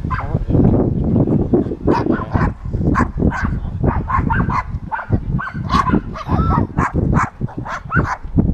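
A dog barking and yelping in quick, repeated short bursts, some rising and falling in pitch, over a steady low rumble.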